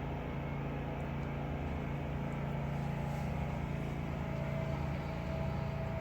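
Steady low machine hum with a few faint ticks.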